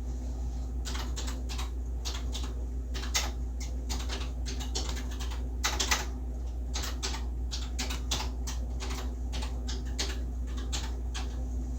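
Keys of an electronic typewriter being struck one at a time at an uneven pace, typing out label text, with a steady low hum underneath.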